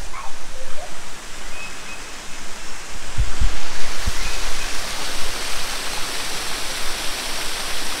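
Steady rushing of a small waterfall spilling over rocks into a pool, with a few brief low bumps about three and four seconds in.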